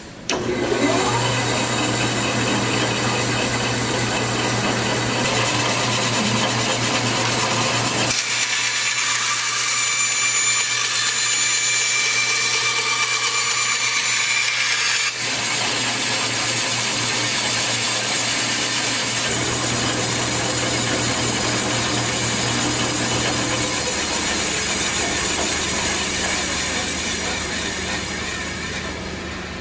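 Powermatic 143 14-inch vertical band saw switched on and running with a steady hum, its blade cutting through a thin metal sheet partway through, which adds a high ringing. The sound fades near the end.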